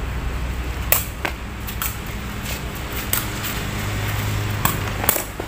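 Sepak takraw ball struck again and again in a rally, giving several sharp knocks at uneven intervals, the loudest about a second in, over a steady low hum of traffic.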